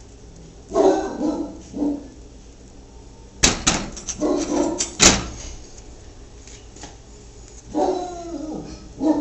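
A dog barking and whining in several short bouts, with two sharp barks in the middle.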